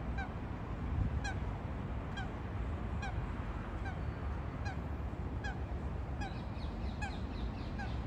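A bird calling over and over, a short falling honk repeated a little more than once a second, over a steady low rumble. Near the end, other higher, quicker bird calls join in.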